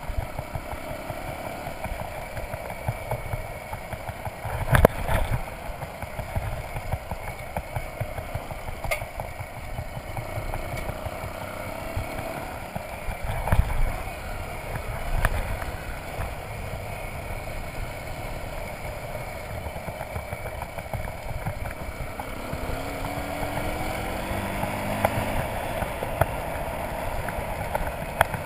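Motorcycle riding over a gravel road: a steady rough rumble of wind and road noise with the engine faintly under it, its note rising a few times as it picks up speed. Two loud thumps from bumps, about five and thirteen seconds in.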